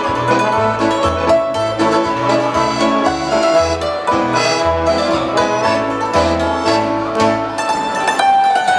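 Live polka band playing a polka on hammered dulcimer, trombone, accordion and keyboard, over an alternating oom-pah bass. The bass line drops out about three-quarters of the way through, leaving the dulcimer and accordion.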